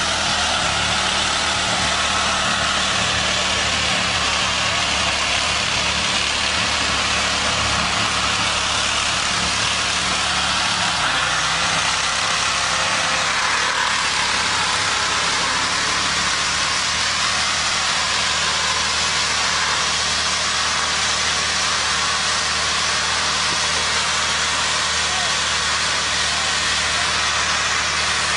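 Pickup truck engine running steadily while a bare steel wheel rim, its tire burned away, grinds against the pavement and throws sparks, a continuous scraping hiss over the engine.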